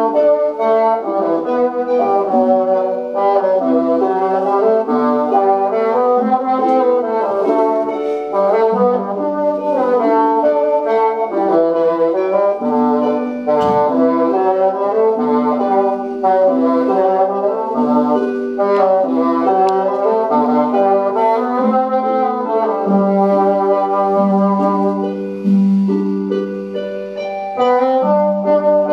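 Solo bassoon playing a melody: a continuous line of sustained, changing notes in the instrument's low-to-middle range. There is one brief click about halfway through.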